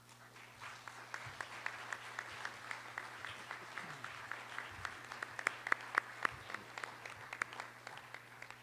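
Audience applauding: many hands clapping, building up within the first second and thinning toward the end.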